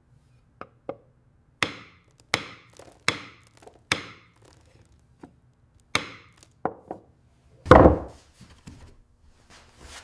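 A series of sharp strikes on wood, like a tool or mallet hitting timber: about ten irregular knocks with a short pause in the middle. One heavier, deeper thud comes near the end, followed by a few faint taps.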